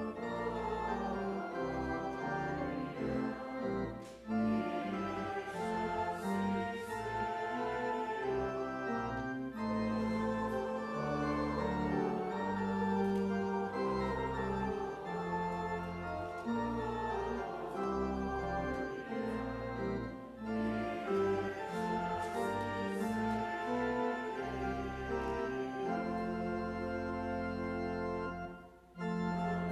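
Church organ playing a hymn in sustained chords, with short breaks between phrases, the longest near the end.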